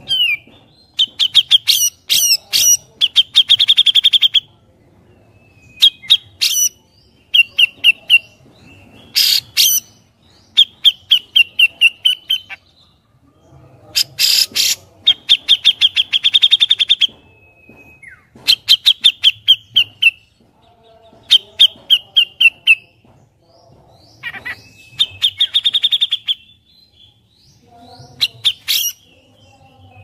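Grey-cheeked bulbul (cucak jenggot) singing: loud bursts of rapid chattering notes, each a second or two long, repeated every couple of seconds with short pauses between.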